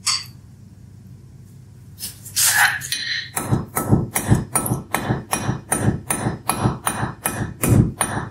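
Hand hammer striking a glowing-hot bar held at an angle on the anvil's edge, a steady run of blows about three a second starting a few seconds in, drawing out a taper.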